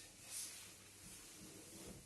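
Near silence: quiet room tone, with one short soft hiss about half a second in.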